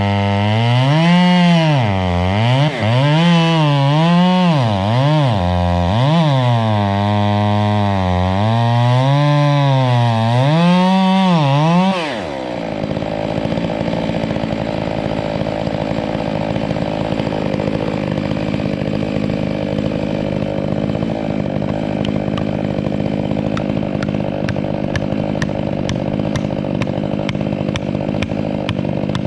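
Two-stroke chainsaw engine revved up and down over and over for about twelve seconds. It then changes abruptly to a steadier, rougher running sound that carries on.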